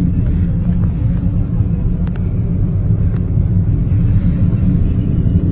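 Loud, steady low rumble, its weight all in the deep range, with a faint click about two seconds in.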